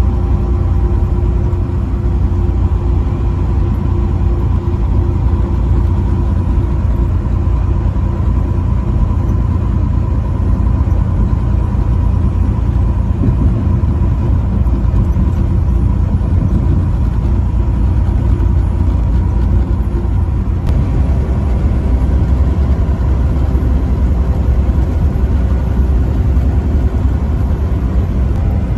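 Semi-truck running at steady highway speed: a constant low engine and road rumble with a faint steady whine over it.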